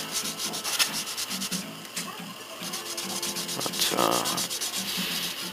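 Fine wet sandpaper (1000 grit) rubbed back and forth over the enamel paint on a plastic model car body, in short, even strokes in a quick rhythm, to smooth out specks of dust and lint caught in the paint.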